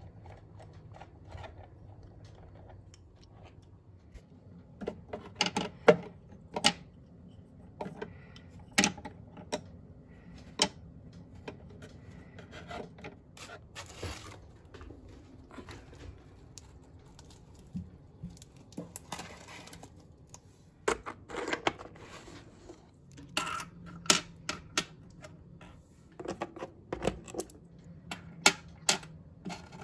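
Small objects being handled and set down on a hard tabletop: scattered clicks and knocks, a few short bursts of rustling packaging, and coins clinking near the end.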